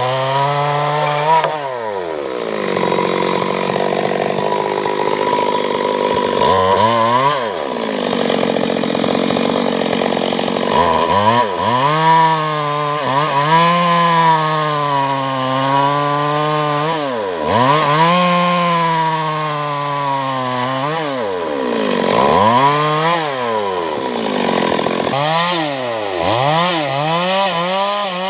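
Chainsaw engine running at high revs, its pitch repeatedly falling away sharply and climbing back, about six times.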